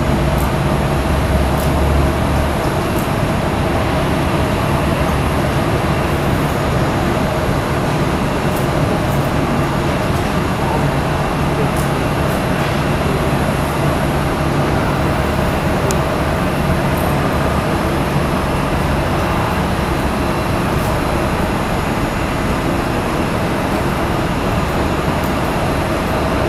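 Steady roar of airliner jet engines idling as the aircraft taxi, with a low even hum running under it.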